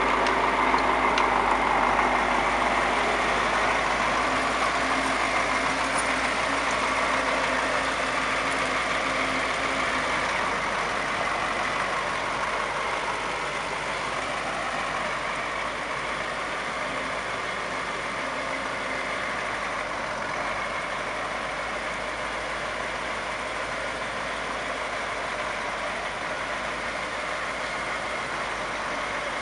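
Heavy road-works vehicle engine running steadily, growing slowly fainter over the first ten seconds or so and then holding level.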